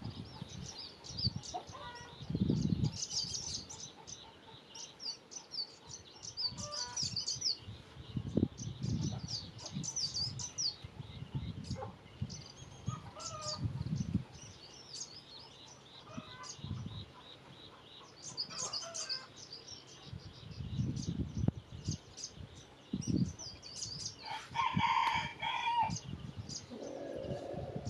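Small birds chirping repeatedly in short high notes, with a rooster crowing once near the end. Dull low thumps recur throughout.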